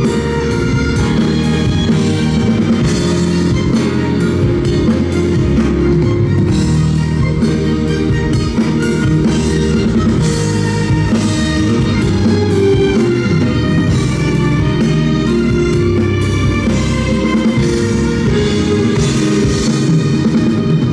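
Live pop-rock band music with drum kit and guitar, playing on without a break.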